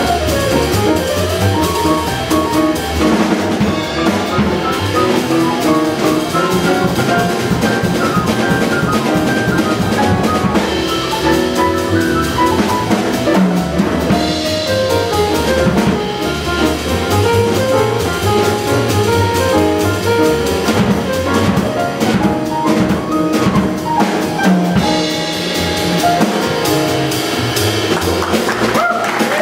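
Live jazz combo: grand piano playing quick runs of notes over walking upright bass and a drum kit with cymbals, the horns silent.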